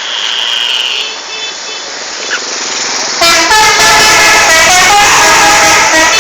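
Indonesian 'telolet' multi-tone bus horn playing a tune of stepped notes, very loud, starting about three seconds in. Fainter high steady tones sound in the first two seconds.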